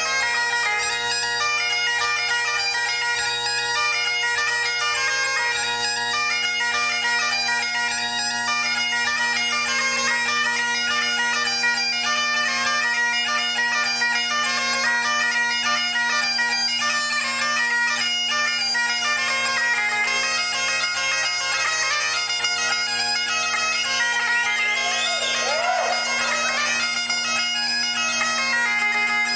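Great Highland bagpipe played solo: the drones hold one steady chord under a quick, unbroken chanter melody.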